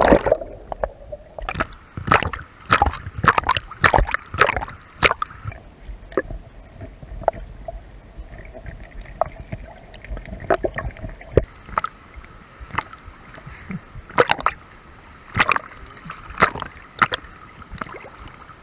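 Swimming-pool water heard from underwater, muffled: irregular splashes, gurgles and sloshes from people wading and jogging through the pool.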